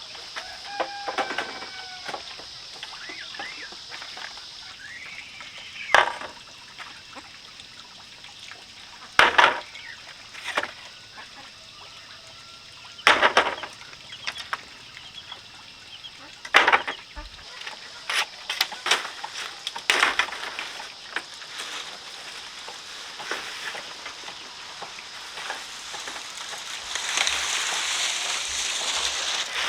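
A series of sharp knocks, one every few seconds and then several in quick succession, over a steady high insect drone, with a few short bird-like chirps near the start. A rushing, hissing noise rises for the last few seconds.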